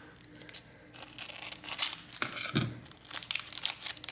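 Thin plastic film crinkling and tearing in irregular crackly bursts, busier from about a second in, with a few small clicks: a replacement adhesive gasket's packaging or backing being handled and peeled.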